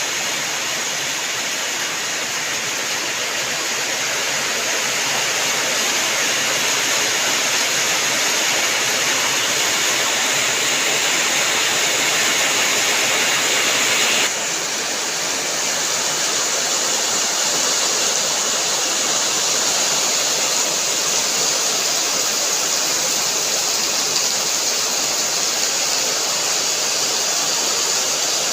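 Steady heavy rain, an even hiss of falling water that shifts slightly in tone suddenly about halfway through.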